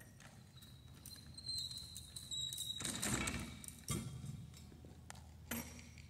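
A few soft knocks and clunks from a stand-mounted concrete core drill rig being handled, with a thin high squeal running through the first half.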